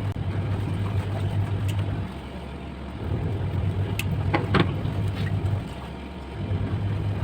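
A small motor humming in bursts: it runs, stops about two seconds in, runs again from about three seconds, stops again near the end and restarts. A few sharp clicks come about halfway through.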